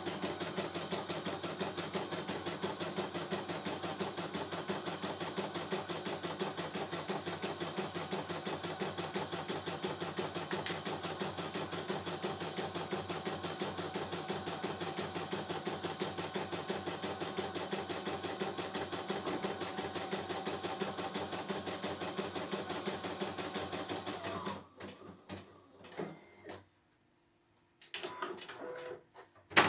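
CNY E900 computerized embroidery machine stitching a design, a fast, even needle rhythm that stops near the end. It is followed by a few short mechanical sounds and a sharp click.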